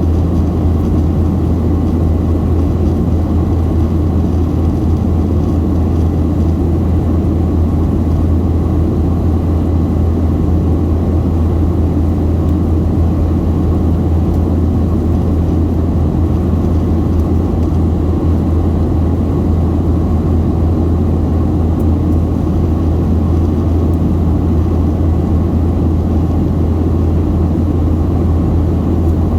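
Steady cabin noise inside a Boeing 737-700 in flight: a constant low rumble from the CFM56-7B turbofan engines and rushing airflow over the fuselage, with no change in pitch or level.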